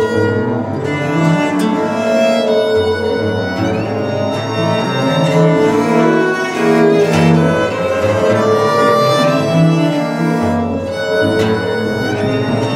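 Consort of four viols (violas da gamba) playing slow bowed music, several held notes sounding together and changing about every second.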